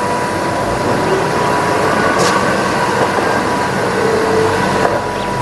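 MAN concrete mixer truck's diesel engine running as the truck drives and turns along a street: a steady engine and road noise with a faint, constant whine.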